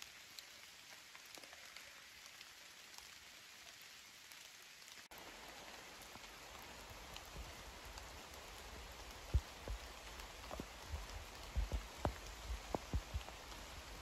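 Steady rain falling in a forest, an even soft hiss. In the second half, a scatter of short, low thumps close to the microphone stands out, the loudest sounds, irregular rather than rhythmic.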